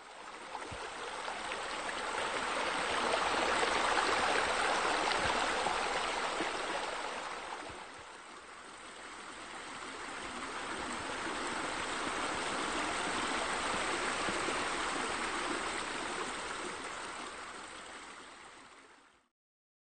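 Running water, a steady rushing noise that swells louder twice, dips about eight seconds in, and fades out near the end.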